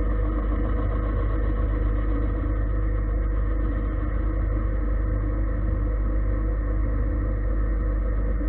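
Gildemeister CTX 400 S2 CNC lathe running, its spindle turning the workpiece while a turret turning tool cuts it: a steady, even machine hum with several held tones.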